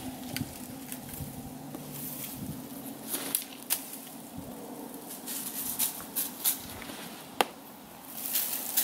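Irregular crunches and sharp clicks of footsteps and stones on dry river gravel, with a clear single knock about seven seconds in.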